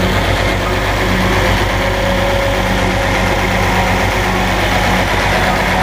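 Boat's inboard diesel engine idling steadily in its engine bay.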